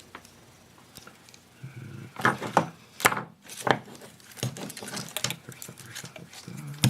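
Irregular small clicks and knocks of tools and parts being handled on a workbench during soldering, with a few low murmurs.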